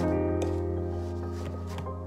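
Background music of slow, held chords, one chord sustained throughout.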